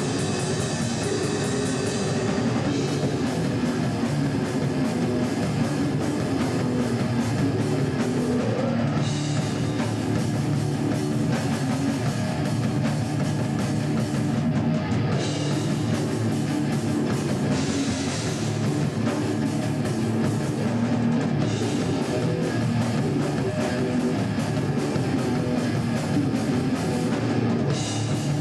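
Rock band playing live: electric guitar and drum kit.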